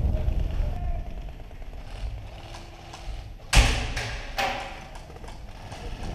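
A sharp thump about three and a half seconds in and a lighter one just under a second later, over a steady low rumble.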